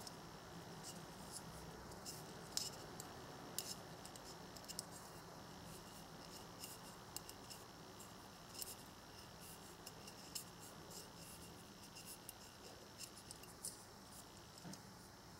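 Faint handling of a small plastic spinning top as a thin string is wound around its spindle: soft rubbing with many small, irregular clicks and ticks from fingers and string on the plastic.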